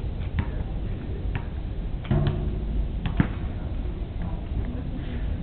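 Scattered clicks and rattles of an umbrella stroller's frame and wheels as it is pushed over wood chips, over a steady low rumble. A brief voice-like sound about two seconds in.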